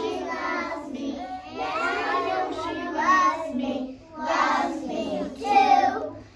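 A class of young children singing a song together, with a short break between lines about four seconds in.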